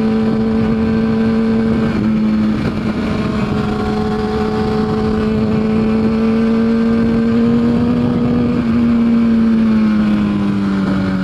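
Motorcycle engine running at a steady road speed, with wind rushing over the microphone. The engine pitch steps slightly about two seconds in and sinks a little near the end as it eases off.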